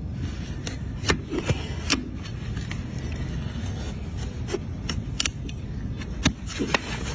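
Farrier's hoof nippers snipping at a horse's hoof wall: irregular sharp clicks, about a dozen, over a steady low rumble.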